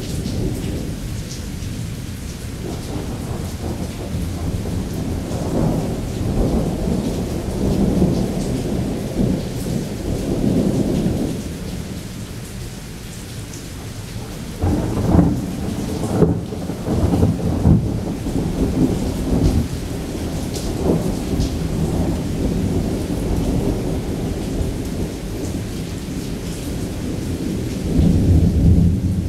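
Thunderstorm with heavy rain falling steadily while thunder rumbles almost without pause. Louder peals of thunder come about halfway through and again near the end.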